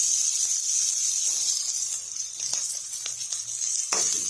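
Onion, garlic and ginger sizzling in hot oil in a pan: a steady high hiss, with a few light clicks of stirring and a sharper knock near the end.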